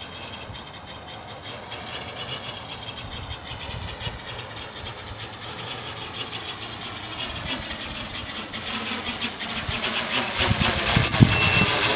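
Electric motors and propellers of an OB-6 Observer hexacopter drone whirring in flight, a steady whine that grows steadily louder as the drone comes overhead.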